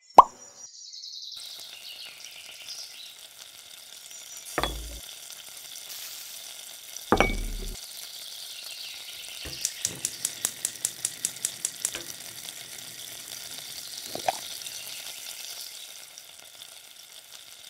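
Butter sizzling as it melts in a miniature frying pan: a steady frying hiss, with two dull thumps and a quick run of light clicks partway through.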